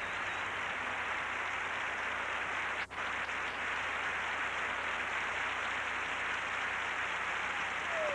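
Studio audience applauding steadily at the end of a song, with a momentary dropout about three seconds in.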